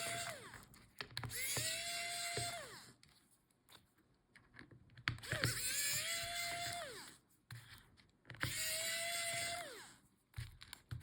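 Small electric screwdriver backing out laptop hinge screws. Its motor whirs up to a steady pitch, holds for about a second and a half, then winds down. There are three such runs, with small clicks of handling between them.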